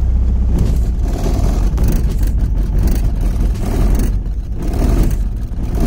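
Honda H22 inline-four in an EK Civic running unevenly after a cylinder head swap. The owner takes the roughness for a misfire, though the timing looks right.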